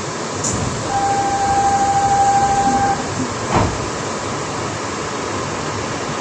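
Running noise heard inside a New Shuttle 2000-series rubber-tyred people-mover car on the move, a steady even rush. About a second in, a steady high tone sounds for about two seconds. A short knock follows shortly after it.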